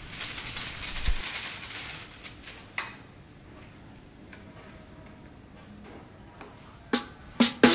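A plastic bag crinkling as crushed lá giang leaves are shaken from it into a pot of simmering broth. A metal ladle then stirs the broth in a metal wok, with a few sharp clinks of the ladle against the pan, the loudest two near the end.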